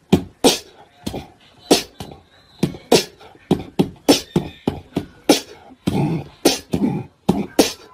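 Beatboxing: mouth-made percussion of sharp clicks, pops and low kick-like thumps in a quick, uneven rhythm.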